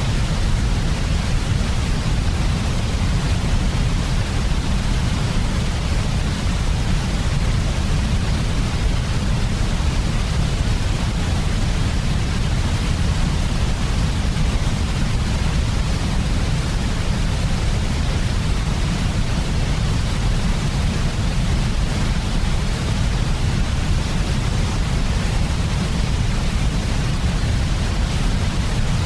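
Steady, unbroken sleep noise of the kind played for infants, an even hiss with more weight in the low end and no change or events throughout.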